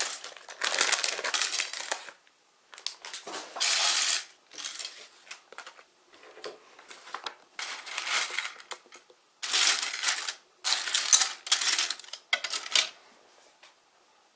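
Sluban plastic building bricks clattering and rattling onto a ceramic plate in repeated bursts a second or two long, stopping near the end.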